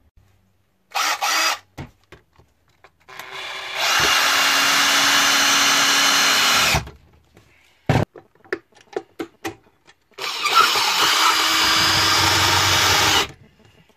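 Cordless drill driving screws into a timber wall: a short blip about a second in, then two steady runs of about three seconds each, with a click between them.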